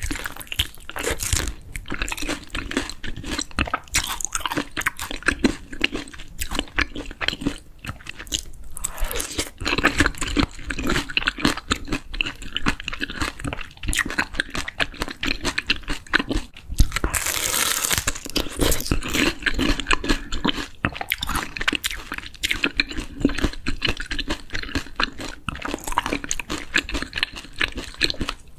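Chewing and biting of crispy grilled daechang (beef large intestine), with many sharp, irregular crunches.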